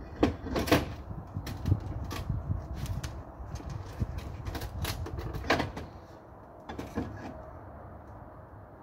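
Irregular sharp clinks and knocks of clay roof tiles being handled and shifted at the edge of the roof, thinning out after about seven seconds.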